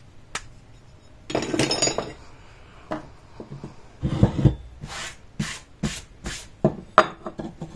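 Cast aluminium Pelton-wheel parts handled on a wooden workbench: a single click, a scraping rub about a second and a half in, then from about four seconds a run of sharp metal clinks and knocks as the pieces are moved and set down.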